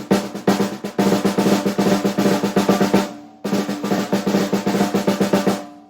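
JDS Blood River snare drum at a medium tuning, played with sticks: a few separate hits, then fast rolls and fills with a pitched ring under the strokes. There is a brief break about three seconds in, and the last strokes die away near the end.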